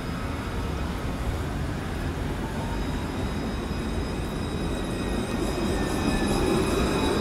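Alstom Citadis electric tram running on street track, a steady rumble with a thin, high, steady whine over it. The sound grows a little louder near the end.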